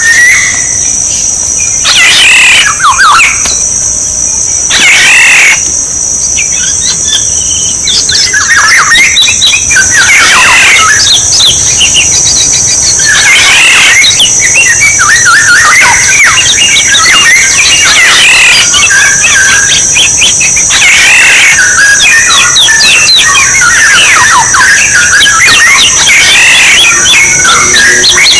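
Oriole calls, used as a bird-luring call track: loud, repeated whistled and harsher call phrases that grow denser and overlap from about a third of the way in, over a steady high buzz.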